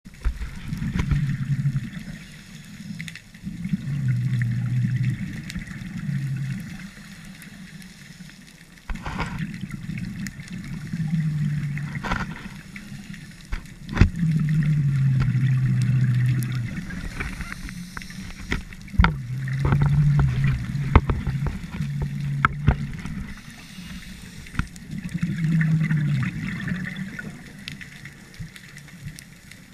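Scuba diver breathing through a regulator underwater: exhaled bubbles gurgle in low spells every four or five seconds, with scattered sharp clicks in between.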